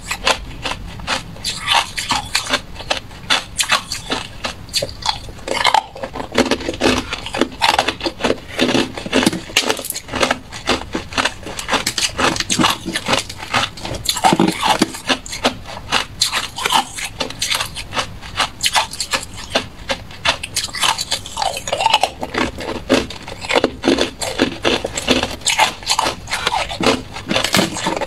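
Hard clear ice being bitten and chewed: a dense, continuous run of sharp cracks and crunches.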